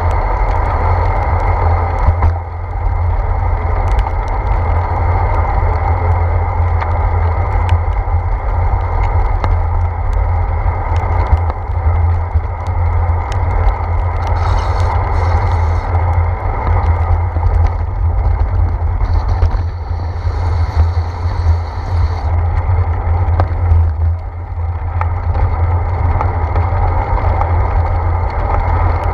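Bicycle riding on a wet paved path, heard through a handlebar-mounted GoPro: a loud, steady rumble of wind and road vibration with scattered light ticks. Twice in the middle, a few seconds of higher hiss rise over it.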